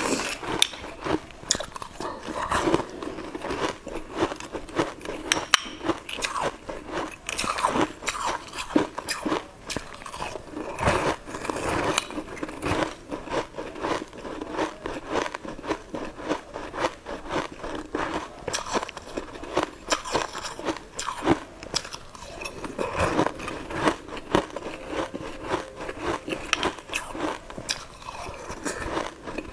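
A person eating frozen, sugar-coated jelly balls, heard close on a lapel mic: repeated crisp, irregular crunching as the icy balls are bitten, with chewing in between.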